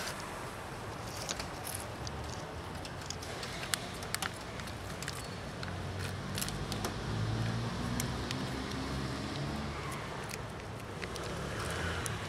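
Street background with scattered small clicks and rustles; a vehicle engine's low hum swells through the middle and fades. Near the end, wet cat food squelches out of a pouch onto the pavement.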